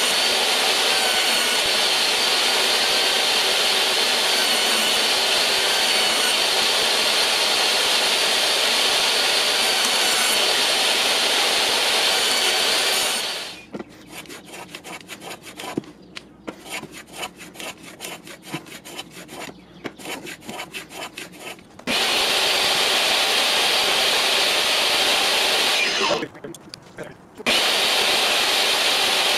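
Portable jobsite table saw running and ripping thin wood strips, a steady loud whine. About halfway through it gives way to a small hand plane taking quick, short scraping strokes along a thin yellowheart strip. Then the table saw runs again, with a brief break near the end.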